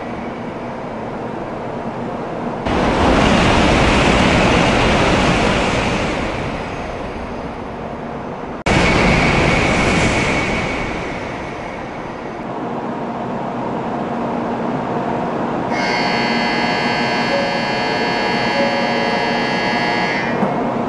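Shinkansen high-speed trains passing at speed: a loud rushing roar of air and wheels that swells and fades, broken by two abrupt cuts. Near the end a steady, high, many-toned ringing sounds over the rush for about five seconds.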